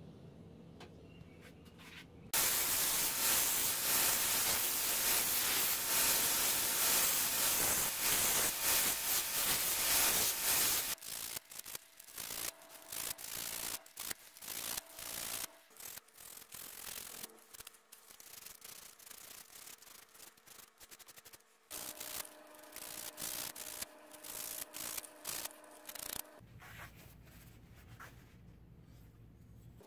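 Sanding a cocobolo wood knife handle: about eight seconds of steady, loud sanding, then spells of short, uneven back-and-forth rubbing strokes with sandpaper by hand.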